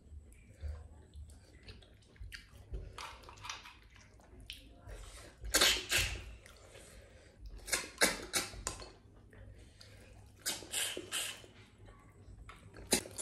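Snail meat being sucked out of the shells: short, sharp, wet slurps that come in three bunches of several quick sucks each, starting about five seconds in.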